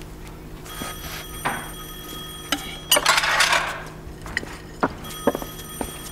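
Landline telephone bell ringing: a ring of about two seconds starting about a second in, then a pause and a second ring about five seconds in. A few light knocks and a brief rustle fall between the rings.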